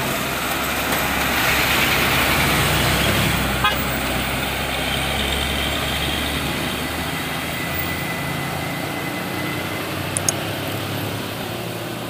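Loaded cargo truck's diesel engine and tyres passing close by, then pulling away with a low rumble that slowly fades.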